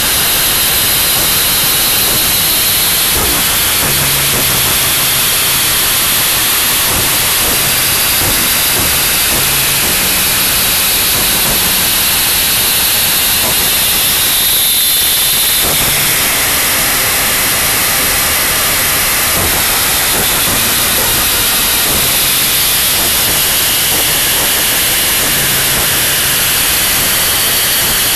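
Harsh noise wall: a loud, dense, unchanging wall of static noise filling the whole range, its texture shifting only slightly.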